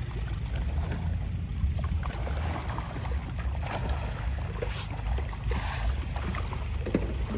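Wind buffeting the microphone in a steady low rumble, with the faint wash of wind-rippled pond water beneath it.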